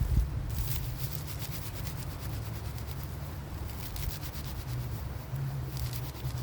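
Rapid rhythmic rasping strokes, like wood being scraped or sawn, in bursts over a steady low rumble.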